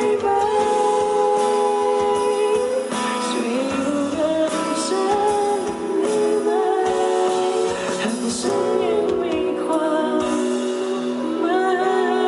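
Live pop band music near the song's end: a sustained, gliding melody line over the full band, with no lyrics.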